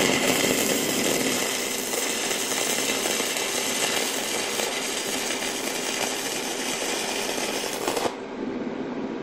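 Stick welding arc burning a 1/16-inch 6013 rod on thin steel exhaust tube: a steady sizzle that cuts off sharply about eight seconds in as the arc is broken.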